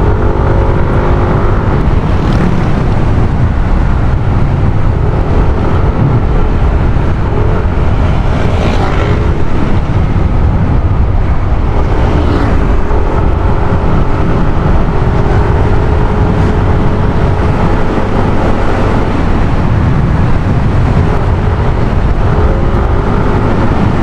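Yamaha NMAX 155 scooter's single-cylinder engine running on the move, its note rising and falling with the throttle, under heavy wind rumble on the microphone. Three brief whooshes come about 2, 9 and 12 seconds in.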